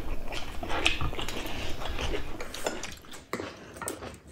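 Chopsticks and spoons clicking now and then on ceramic bowls and plates, with chewing.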